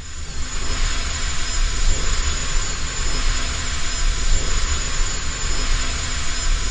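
Cinematic sound effect: a loud, steady rush of noise over a deep rumble, swelling in over the first second and then holding level.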